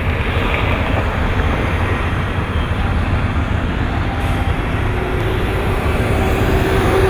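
Steady rumble and hiss of city road traffic.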